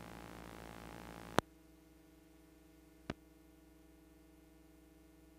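Faint hum and hiss from a blank stretch of videotape audio. A sharp click comes about a second and a half in, after which the hiss drops and a steady hum remains; a second, smaller click follows about three seconds in.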